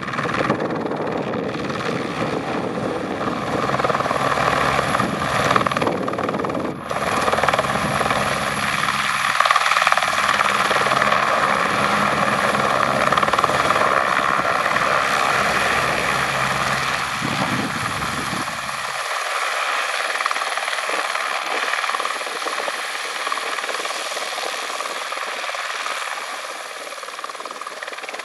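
Eurocopter AS350 B2 helicopter hovering low on a post-maintenance check flight: steady single-turboshaft whine and main-rotor sound. The deep low rumble cuts out suddenly about two-thirds of the way through.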